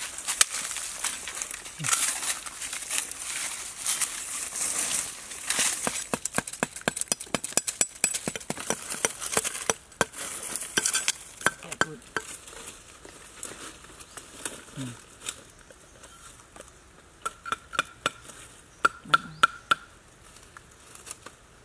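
Large knife blade scraping and cutting at the ground and a rope, with dry leaves crackling: a dense run of sharp scrapes and clicks that thins to scattered taps in the second half.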